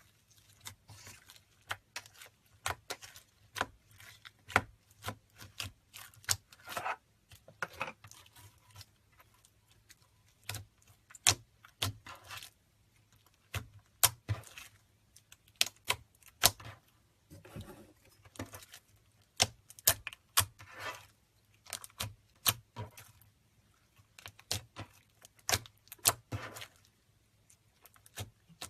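Slime being worked, giving irregular sticky clicks, pops and short crackles, several a second at their busiest.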